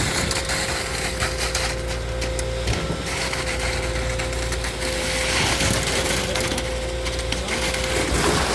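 Concrete pour in progress: a machine runs with a steady hum and a constant whine, under rough crunching and scraping noise with many short clicks.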